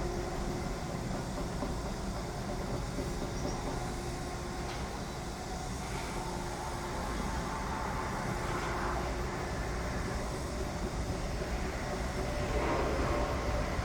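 Construction-site machinery noise: a steady low mechanical rumble, with a couple of louder, higher grinding swells in the second half.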